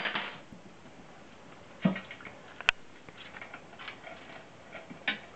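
Scattered light clicks and taps of hand tools and metal parts being handled during bicycle fender fitting, with one sharp metallic tick just under three seconds in.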